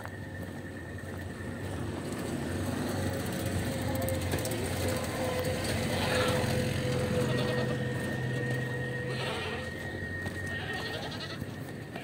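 Livestock market din with animals bleating; the calls are loudest about six and nine seconds in.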